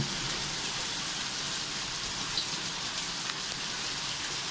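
Pea-size hail and heavy rain falling on wet pavement: a steady, dense hiss of many small impacts.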